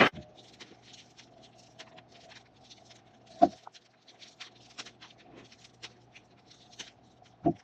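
Slime being squeezed and worked by hand: a running stream of quick, sticky clicks and pops, with three louder pops at the start, about three and a half seconds in and near the end.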